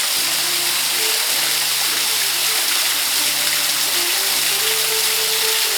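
Water falling steadily from the decorative elephant waterfall, a constant hiss, with music playing alongside it: slow melody notes over a bass line that changes about once a second.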